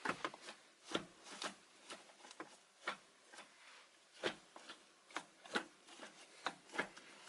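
Faint, irregular clicks and rubbing, about one or two a second, from hands handling the Nissan 350Z's newly fitted shift knob and shift boot.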